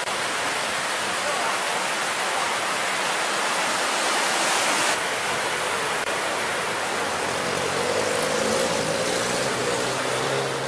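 Steady, loud hiss of outdoor street ambience, with a faint low engine-like hum coming in over the last few seconds.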